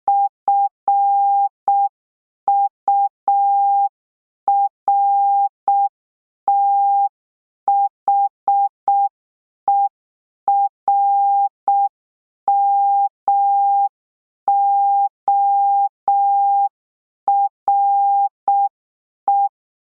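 Morse code sent as a steady tone of about 800 Hz, keyed in dots and dashes with letter gaps, spelling F-U-R-T-H-E-R-M-O-R-E ("furthermore").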